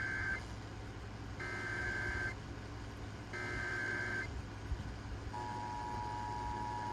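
Emergency Alert System tones: the end of one burst of the SAME digital header, then two more data bursts, each about a second long with about a second between them. About five seconds in, the steady two-tone EAS attention signal starts.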